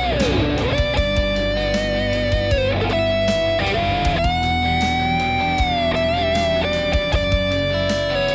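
1991 Gibson Les Paul Standard electric guitar playing a lead line of long held single notes with vibrato. It opens with a slide down in pitch.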